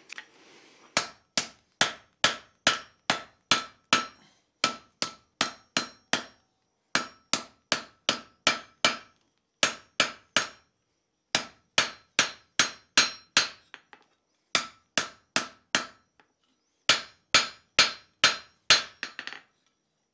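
Hand hammer striking red-hot steel on an anvil: runs of four to seven blows, about three a second, with short pauses between, each blow ringing briefly. The smith is forging the reins of a tong blank, rounding off their corners.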